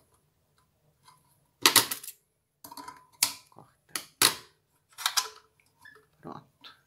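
Handling noise from fingers working a small lace rosette and its thread at a portable fuxico maker: a series of sharp clicks and crinkles, loudest about two seconds in and again around four to five seconds in.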